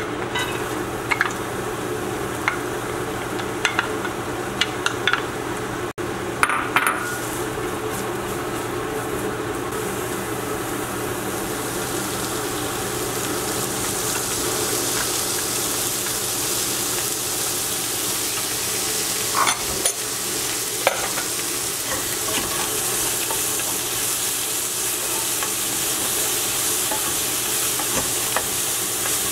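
Diced carrots and green onion frying in oil in a nonstick wok, stirred and scraped with a wooden spatula. A few light taps and clicks come in the first several seconds, and the sizzling grows louder about halfway through.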